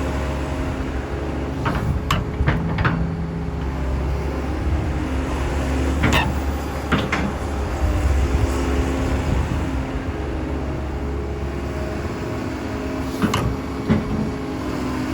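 Kobelco SK200SR hydraulic excavator running, its diesel engine holding a steady low hum. Sharp metallic clanks come through now and then: several in the first three seconds, a pair around six to seven seconds, and another pair near the end.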